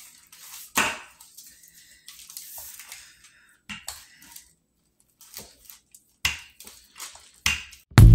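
Wooden rolling pins working pizza dough on parchment paper over a stone countertop: scattered light knocks and paper crinkling. Loud music with a beat starts right at the very end.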